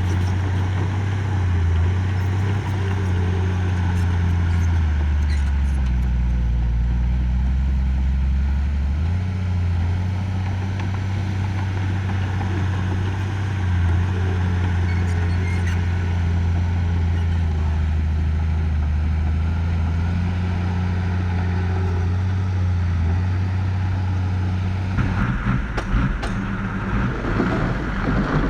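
Heavy earthmoving machine's diesel engine running steadily, its low pitch shifting now and then as the load changes. About 25 seconds in the sound turns rougher and noisier.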